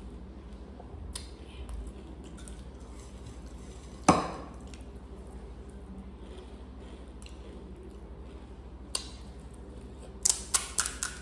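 Crisp pani puri shells crunching: one loud crunch about four seconds in, a single click near nine seconds, and a quick run of sharp cracks near the end as a hollow puri shell is broken.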